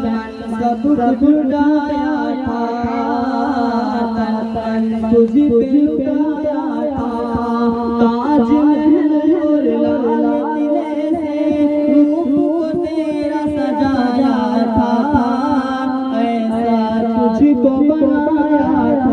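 Voices singing a patriotic Urdu nazm, with a steady low drone held beneath the melody.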